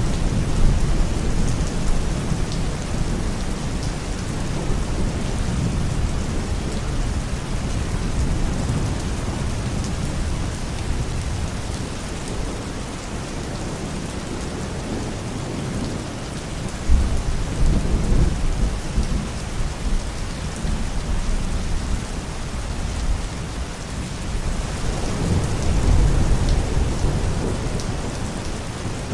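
Thunderstorm: steady heavy rain hissing, with rolls of low thunder rumbling at the start, again a little past the middle, and near the end.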